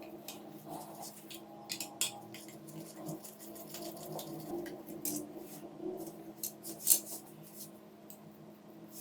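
Irregular small clicks, taps and scrapes of hand tools and small parts being handled while a handheld fan is worked on, with one sharper click about seven seconds in, over a steady low hum.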